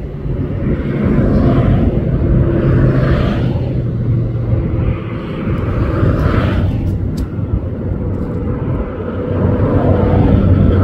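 Steady low rumble with a hiss that swells and fades every second or two, and a few faint clicks about seven seconds in.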